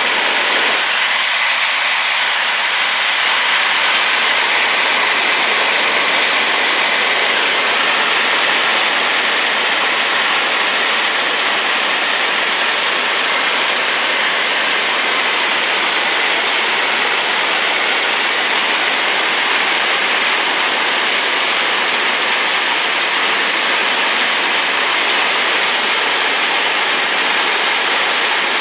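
Waterfall in spate, its rain-swollen, sediment-laden flow crashing down in a loud, steady rush of white noise.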